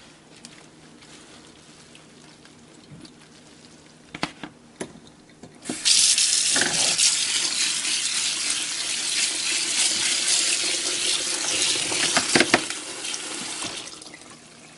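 Water from a kitchen faucet running into a bowl of cooked macaroni in the sink. It starts suddenly about six seconds in, runs steadily and tapers off shortly before the end. A few light clicks come before it.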